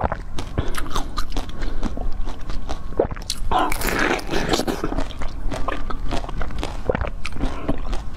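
Close-miked eating sounds: wet mouth clicks and chewing, with one louder bite into a blue fruit-shaped dessert about three and a half seconds in that lasts about a second.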